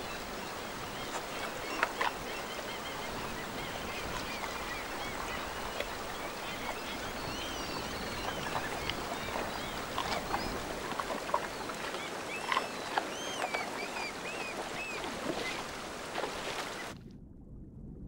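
River water running steadily, with splashes and many short, high bird calls over it. Near the end it cuts to a much quieter low rumble.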